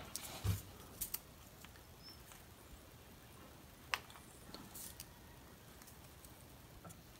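Faint handling sounds of a small cardboard spacer being threaded onto a capacitor's wire lead and pushed into its paper sleeve: a few light clicks and rustles, with one sharper tap about four seconds in.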